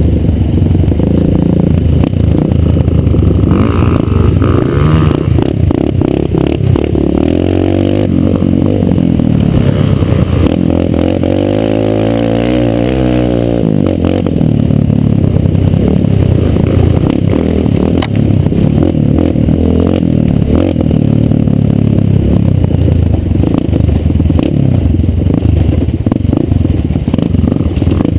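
Kawasaki KLX150 dirt bike's single-cylinder four-stroke engine running under the rider, its pitch rising and falling several times about midway as the throttle is worked, with rattling from the bike over a rough dirt trail.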